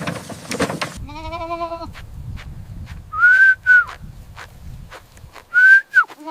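A bleating farm animal gives one shaky, wavering bleat about a second in. Two pairs of short, high whistled notes follow, one pair in the middle and one near the end, and another bleat begins right at the close.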